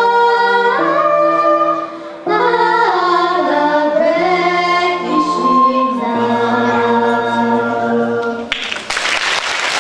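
A girl and a woman singing a song together through microphones, holding long notes, with steady low notes underneath. The song ends with a last held note near the end, and the audience breaks into applause.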